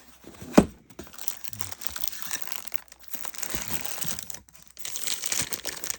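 Packaging crinkling and rustling as a boxed air ratchet is unwrapped and handled, with one sharp knock about half a second in.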